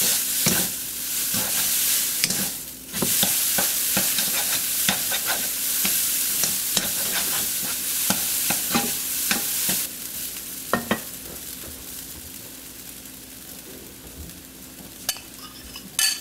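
Blanched egg noodles sizzling in oil in a non-stick wok as a wooden spatula tosses and stirs them, with frequent light taps of the spatula against the pan; the noodles are being stir-fried to dry them out. The sizzle dips briefly near three seconds in and drops noticeably about ten seconds in.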